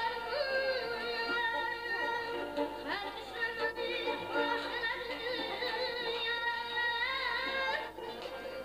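Azerbaijani mugham: a boy singer holds long, quavering ornamented notes over tar and kamancha accompaniment. Near the end the line breaks off briefly and a new phrase starts with a rising glide.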